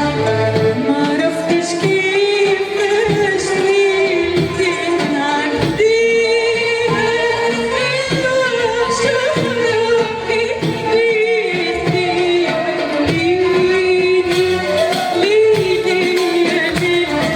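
A woman singing a slow Arabic song with long, held notes and ornaments, accompanied by a live Arabic music ensemble.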